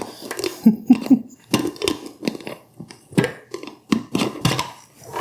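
White plastic lids being screwed onto glass mason jars: a quick series of clicks and scratchy scrapes as the plastic threads turn on the glass.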